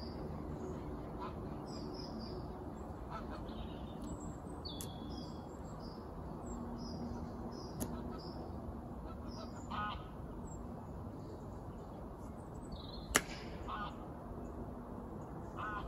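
Outdoor bird ambience: frequent short high chirps and a few lower honking calls over a steady background rumble, with a sharp click about thirteen seconds in.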